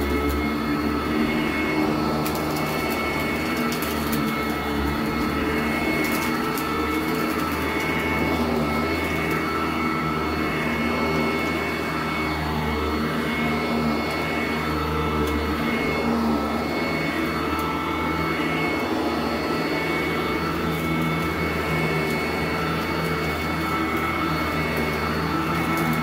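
Sanitaire SC886 commercial upright vacuum running steadily on carpet, a constant motor whine over a low hum, with scattered ticks of grit being sucked up in the first several seconds.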